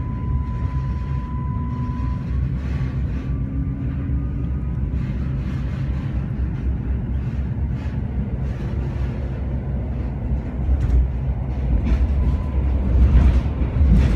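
Regional train heard from inside the carriage as it pulls out of a station: a steady low rumble of wheels on rail. A thin high tone stops about two seconds in, and a faint rising whine follows as the train gathers speed.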